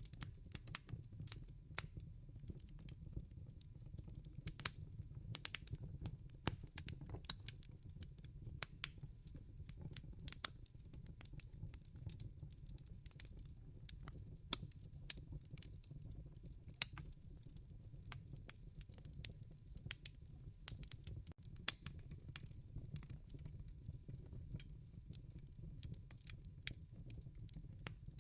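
Wood fire crackling in a fireplace: frequent irregular sharp pops and snaps over a soft, steady low rumble of the flames.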